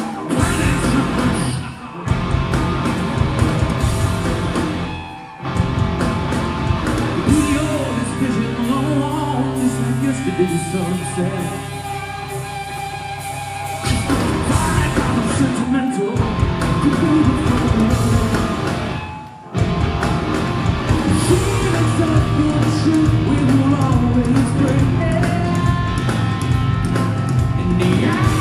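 A rock band playing live, with a male lead singer over electric guitars, bass and drums, heard from within the audience in a concert hall. The band briefly drops out several times.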